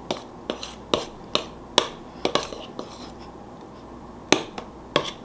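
A utensil clicking and scraping against a glass mixing bowl while stirring thick cake batter to blend in food colouring: sharp clicks about two a second, a short lull in the middle, then a louder knock a little past four seconds.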